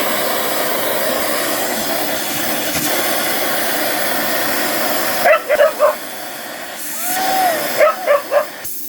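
A vacuum cleaner runs steadily, then cuts off about five seconds in as the dog switches it off. A dog then barks several times in quick succession, the vacuum comes back on for a second or so and stops again, and more short barks follow near the end.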